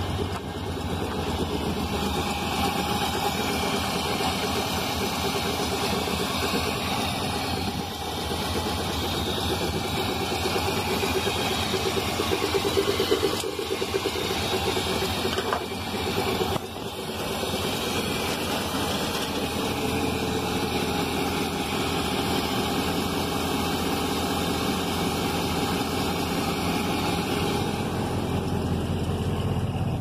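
Old 3/4-ton pickup truck's engine running steadily at idle, an engine the owner believes is blown, with oil getting into the radiator.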